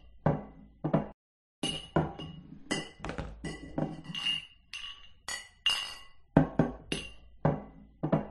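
Beer glasses clinking together in repeated toasts, about two clinks a second, each one ringing briefly, with a short pause a little after a second in.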